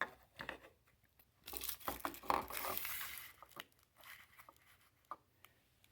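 Crinkling and rustling of parts and packaging being handled, loudest for a couple of seconds near the middle, with a few small clicks.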